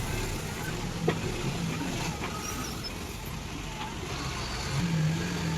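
Heavy diesel engine of a Kobelco excavator running under load while it works, with a sharp metallic clank about a second in and the engine swelling louder near the end.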